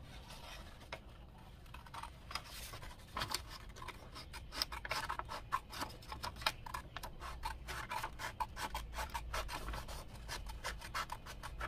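Paper and small objects being handled by hand: a quick, irregular run of clicks, scrapes and paper rustles, starting about three seconds in, as a postal ballot receipt is readied to be cut off with scissors.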